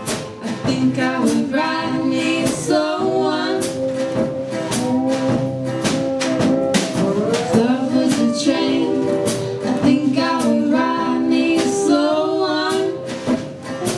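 A small live band playing a song: strummed acoustic guitars, an acoustic bass guitar and a drum kit keeping a steady beat, with a voice singing over them.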